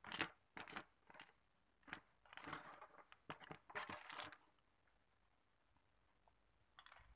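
Hard ice cubes clinking and scraping against a plastic spoon and an aluminium foil tray as a spoonful is scooped up. A run of sharp clicks and short rattles lasts about four and a half seconds, with a few faint clicks near the end.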